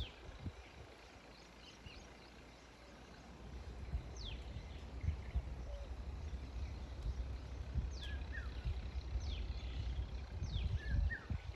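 Birds giving short, high, downward-sweeping chirps, a few seconds apart at first and more often after about eight seconds, over a low rumble with occasional thumps.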